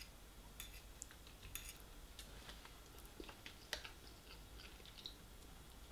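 Faint, scattered clicks and scrapes of a metal fork against a plate of fried rice, the loudest a little before four seconds in.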